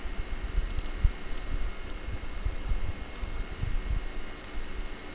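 A handful of light computer-mouse clicks, irregularly spaced, over an uneven low rumble with soft thumps on the microphone.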